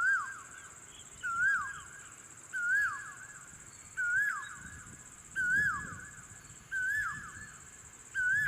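A bird calling: a short, clear note that rises and falls, repeated evenly about every second and a half, seven times. A steady high-pitched tone runs underneath.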